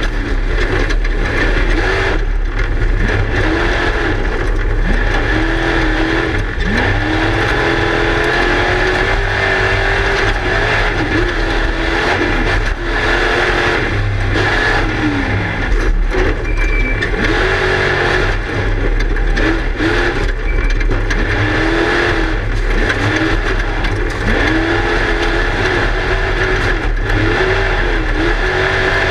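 Class 1 desert race car's engine heard from inside the car at speed, revving up and falling back over and over as the driver works the throttle, under a constant haze of wind and chassis rattle with frequent knocks from the rough ground.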